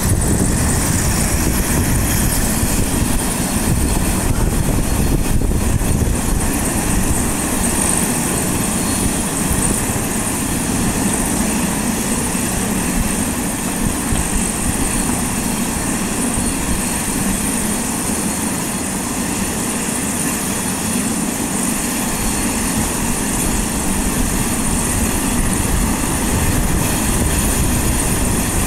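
Turbine helicopter running close by with its main rotor turning as it settles on the ground. It is a steady, loud rotor and engine noise with a high turbine whine over it.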